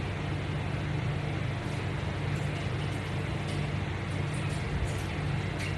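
Steady low hum with an even hiss, like a fan or other machine running in the room, with a few faint clicks near the end.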